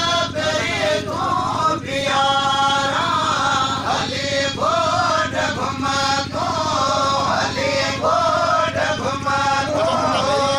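A man singing a long, chant-like melodic line, amplified through a loudspeaker, over a steady low hum.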